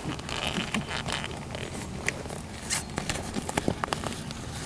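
Hands working a soft top's zipper and handling its fabric and clear vinyl window: scattered rustling with small clicks as the zipper is fed through.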